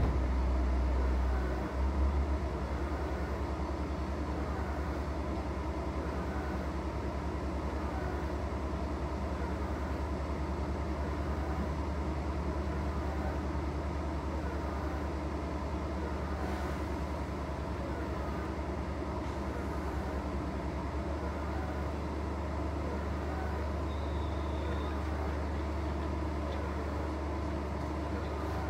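Steady low hum inside a train standing stopped at a station platform, with a single clunk about two seconds in.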